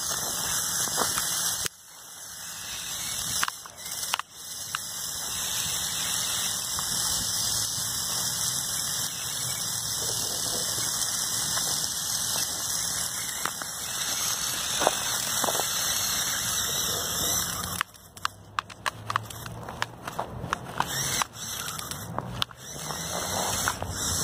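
Two Lego buggy motors on an RC snowmobile, whining high as they drive the tracks through planetary hubs. The whine holds mostly steady, then cuts in and out repeatedly over the last six seconds or so as the throttle is pulsed.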